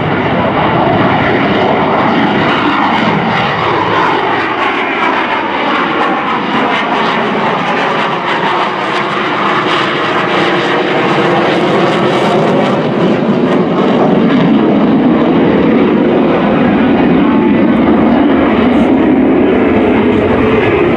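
Loud, continuous jet noise from a Blue Angels F/A-18 Hornet's twin General Electric F404 engines as the jet maneuvers overhead. The tone of the noise sweeps as the jet passes, and it grows louder about two-thirds of the way through.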